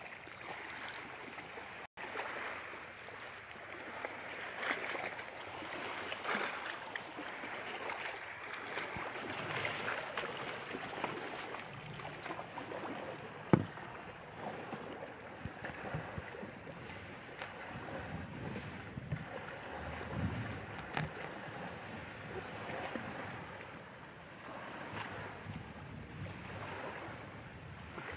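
Wind and waves: a steady rushing noise that swells and eases, with one sharp click about thirteen seconds in.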